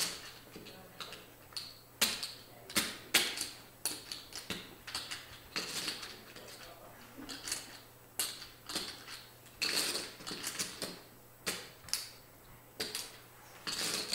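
Clay poker chips clicking together as a player fiddles with his chip stack: a string of irregular sharp clicks and clatters.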